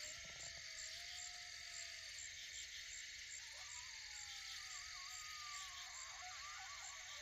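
Faint coyotes howling in long, wavering, gliding calls that break into a chorus of quick yips and warbles, with pups among them, near the end.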